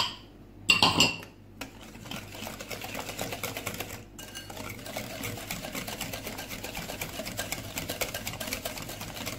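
Wire whisk beating thin liquid cake batter in a ceramic bowl: rapid, steady rhythmic tapping and sloshing as the wires strike the bowl. There is a loud clink near the start.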